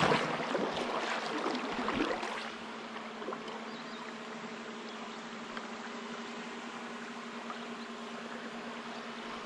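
River current running over a shallow stony riffle, with a few louder splashes in the first couple of seconds before the flow settles to a steady rush. A faint steady hum sits under the water throughout.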